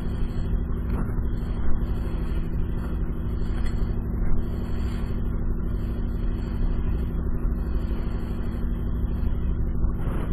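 Fishing boat's engine running steadily under way, with the rush of wind and water, and a couple of brief thumps in the first half as the boat meets the swell.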